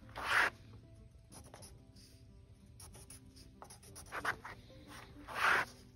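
A pencil scratching short marking lines on a wooden board. The strongest strokes come just after the start and near the end, with a shorter pair about four seconds in.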